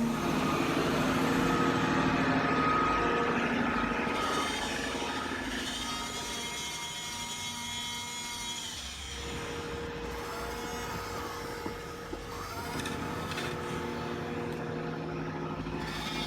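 Small electric motors and gearing of a radio-controlled toy excavator whining as it works, the pitch changing as the motors speed up and slow down.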